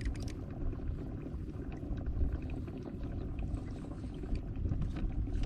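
Low wind rumble on the microphone over light water sounds around a kayak, with scattered faint clicks and knocks.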